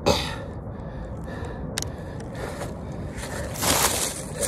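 Steady rumble of wind and movement on the microphone of a camera carried by a runner, with a short hissing burst at the start, a sharp click about two seconds in, and another hissing swell near the end.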